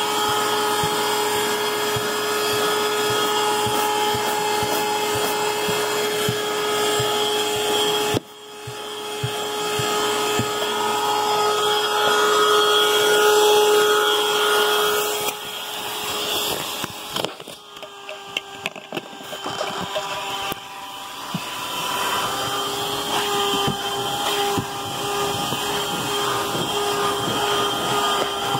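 Vacuum cleaner running steadily with a high whine while its wand and hose suck dirt from car carpet. The sound drops sharply about a third of the way in and builds back, and later it dips again with rattling clicks of debris drawn up the hose.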